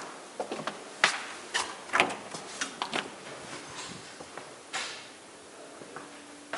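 A string of irregular sharp knocks and clicks, the loudest about a second in and again about two seconds in, with a few more up to about three seconds in and one near five seconds.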